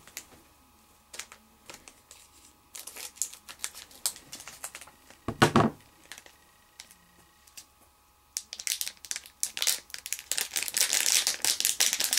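Foil booster-pack wrapper crinkling as a trading-card pack is handled and opened. It starts as scattered rustles, with one louder handling noise about five and a half seconds in, and turns into dense, continuous crinkling from about eight seconds on.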